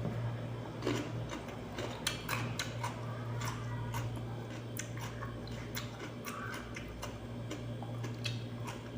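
Chewing raw cucumber: many short crisp crunches and wet mouth clicks at an irregular pace, over a steady low hum.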